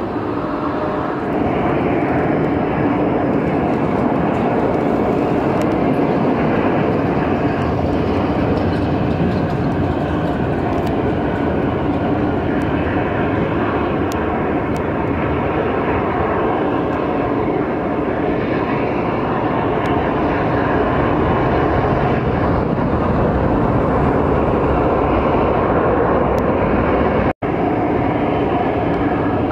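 Boeing 767-200 jet engines running steadily as the airliner comes in to land and rolls out on the runway, an even, loud rush of jet noise. The sound breaks off for an instant near the end.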